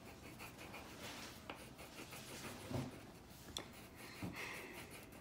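Wax crayon scratching across paper in quick, repeated back-and-forth colouring strokes, faint and scratchy, with a few soft knocks.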